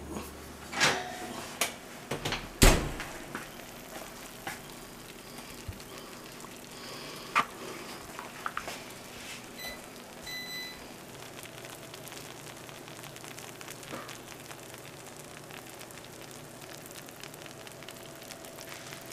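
Several knocks and clunks from the oven and a glass baking dish, the loudest about three seconds in, with a few lighter ones later. Under them is the faint, steady sizzle of a hot casserole just out of the oven, its melted Swiss cheese still bubbling.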